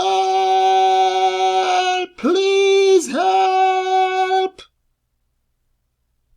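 A high-pitched voice crying out three long, drawn-out wails at a steady pitch, each sliding up at the start and down at the end. The last one breaks off about four and a half seconds in. These are desperate, drawn-out cries for help.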